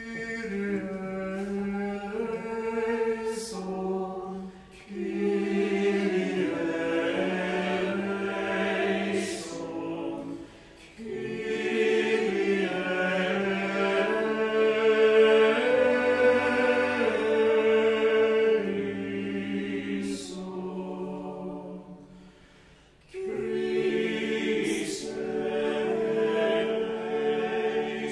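A small choir singing a cappella in several parts, in sung phrases with short breaths between them and a longer pause a little past the middle.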